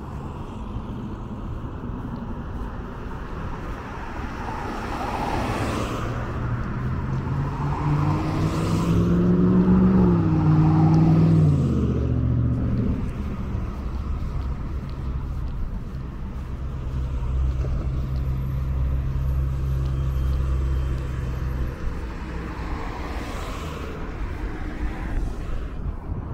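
Road traffic passing on a multi-lane city street. About ten seconds in, a vehicle's engine is loudest, its pitch rising then falling, and it then holds a steady low drone for several seconds.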